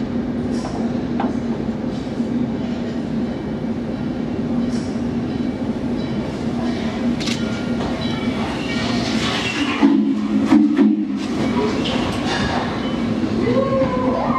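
Norfolk & Western J-class steam locomotive No. 611 pulling in beneath the bridge: a steady hum under the noise of the moving engine and train, loudest about ten seconds in as the locomotive passes below.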